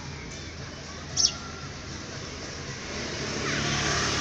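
Outdoor street noise with a motor vehicle passing, growing louder toward the end, and a single brief high chirp about a second in.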